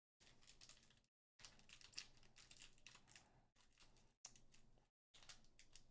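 Faint crinkling and rustling of a foil trading-card booster pack being torn open and its cards handled, with small ticks. The sound drops out to dead silence several times.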